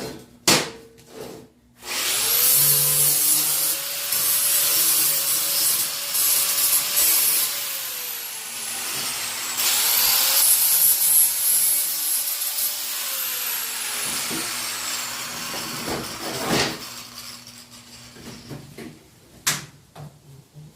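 Angle grinder with a flap wheel smoothing the cut, sharp edges of steel angle iron: two runs, each with the motor winding up, grinding, then winding down. The second run starts about ten seconds in. A few knocks of handling come before and after.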